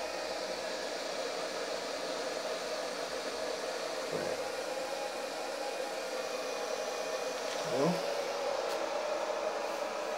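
Solar power inverter's cooling fan running, a steady hum with a constant tone. A short rising sound comes about eight seconds in.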